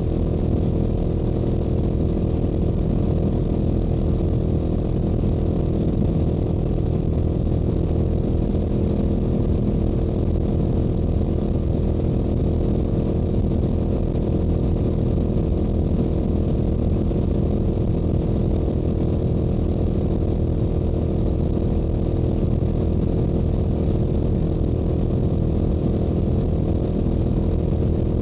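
Stock exhaust of a Yamaha YZF-R7's 689 cc parallel-twin engine running steadily at highway cruising speed, holding the same revs throughout.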